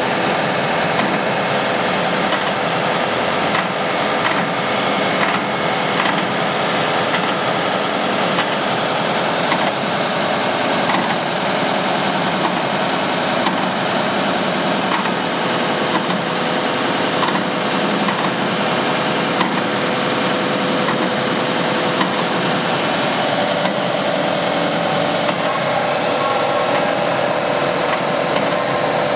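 24-inch Timesaver wide belt grinder running steadily with a loud, even mechanical hum and rush.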